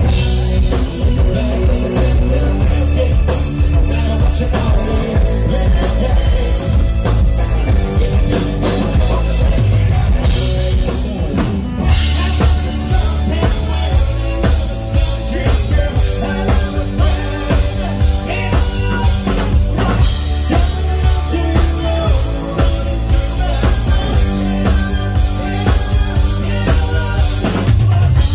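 Live country band playing a song, with a drum kit keeping a steady beat under bass and sustained chords.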